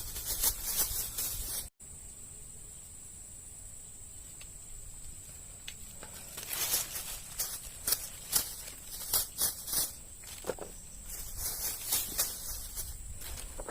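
A steady, high-pitched insect drone, with bursts of rustling and scuffing from about six seconds in.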